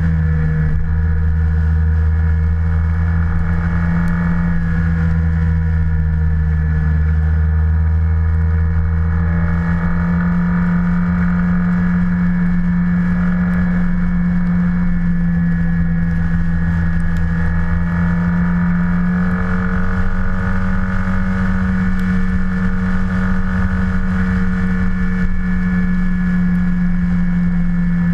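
Yamaha TMAX maxi-scooter engine sound, a steady low drone whose pitch shifts slightly about ten seconds in and again near twenty seconds in.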